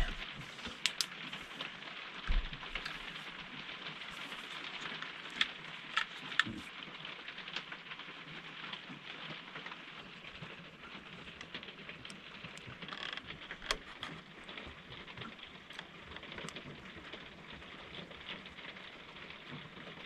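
Steady rain hissing on the roof, with scattered light clicks and taps from handling a 3-in-1 oil can over the speedometer cable.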